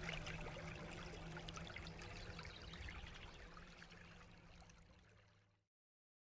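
Water trickling and pouring, with many small splashes over a low steady hum. The sound fades down and cuts off about five and a half seconds in.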